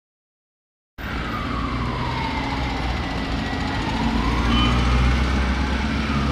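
Emergency vehicle siren wailing in a slow rise and fall over the rumble of street traffic, cutting in suddenly about a second in.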